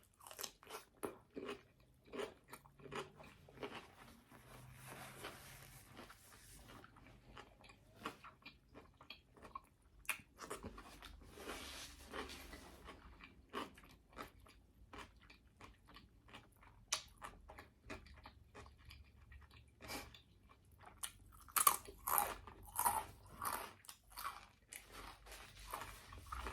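A person biting and chewing crunchy food: a long run of sharp crunches and wet chewing, with a louder flurry of crunching near the end.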